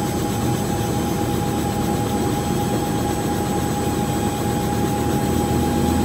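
Helicopter running steadily in flight: a dense, even drone with a steady high whine over it.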